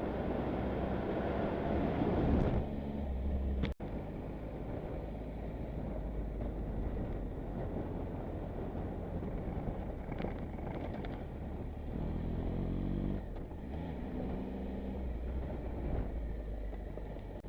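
Motorcycle engine running on the move, under a steady rush of wind and road noise, with a sudden brief break about four seconds in.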